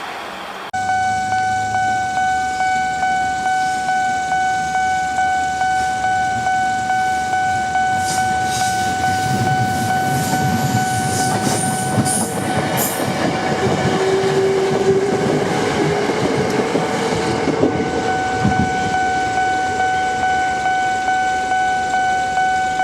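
Japanese level crossing warning bell ringing a steady, evenly repeating 'kan-kan' tone. Partway through, a train runs through the crossing, its wheel and running noise building and then fading under the bell.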